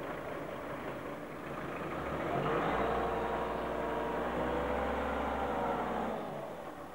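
Motor vehicle engine running at low speed. It grows louder about two seconds in, holds steady, then fades near the end.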